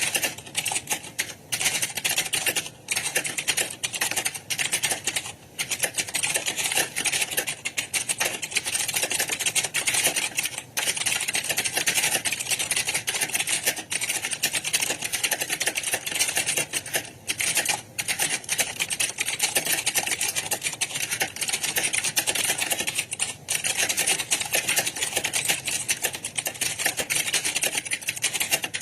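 Computer keyboard typing: a fast, nearly continuous clatter of keystrokes with a few short pauses.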